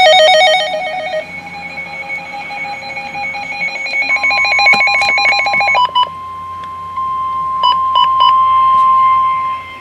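Weather radio alert: rapid pulsing electronic alarm beeps for the first six seconds or so. About four seconds in, a steady single-pitch warning tone joins them, the NOAA Weather Radio 1050 Hz warning alarm that announces a warning. It holds until near the end, broken by a few short beeps.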